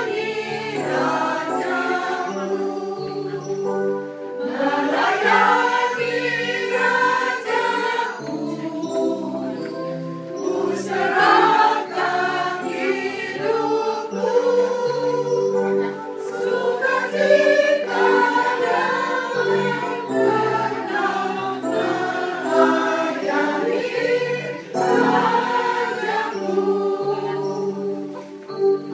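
Church choir, mostly women's voices, singing a hymn together in sustained phrases.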